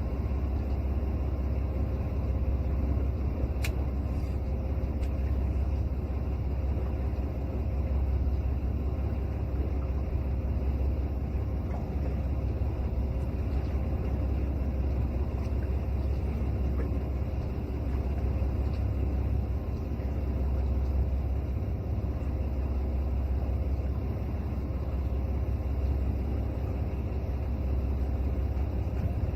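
Fishing boat's engine running steadily, a low constant rumble with a faint hum above it.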